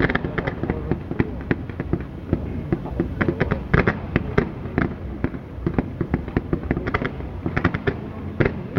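Fireworks display: many sharp bangs and crackles going off in quick succession, with no let-up.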